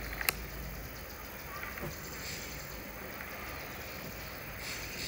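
Steady outdoor background hiss with one sharp click shortly after the start and a few faint rustles.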